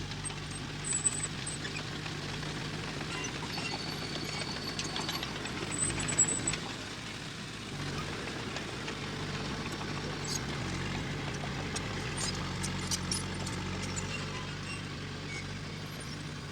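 Diesel engine of heavy earthmoving machinery running steadily, with scattered light metallic clinks and clicks over it.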